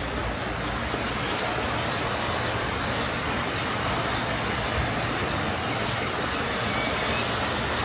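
Steady rushing of water, a waterfall or mountain river running without a break.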